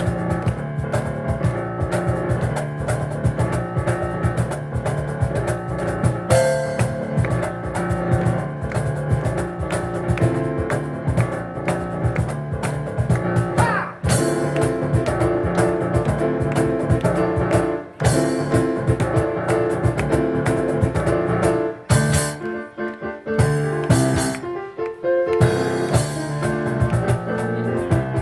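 Piano and cajón duo playing a fast instrumental piece, with rapid cajón strikes under the piano and a few short breaks where the playing stops and comes back in.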